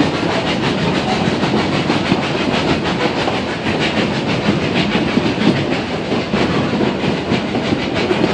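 Puffing Billy narrow-gauge train running along the line, heard from on board: a steady rumble of the carriages with continuous wheel-on-rail clattering.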